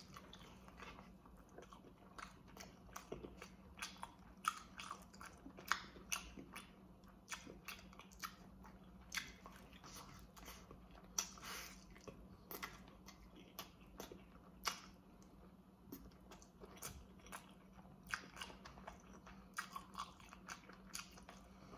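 A person chewing and biting baked chicken drumsticks with a full mouth: irregular mouth clicks and smacks, several a second, with a faint steady hum underneath.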